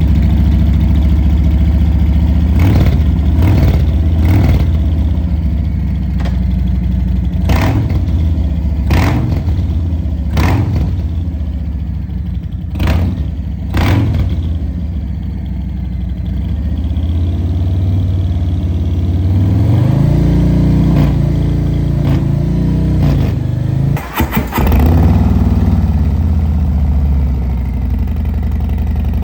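Harley-Davidson V-twin engine running through a Pazoma aftermarket exhaust. It holds a loud, steady low-pitched run, broken by several short sharp cracks in the first half, then is blipped up and back down twice in the second half.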